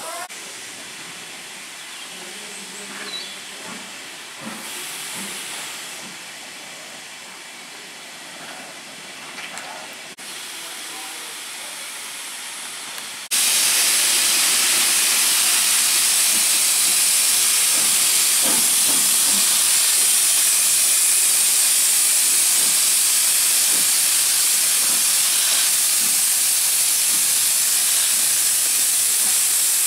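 Steam locomotive letting off steam: after some quieter mixed sounds, a loud, steady hiss of escaping steam starts suddenly about a third of the way in and carries on without a break.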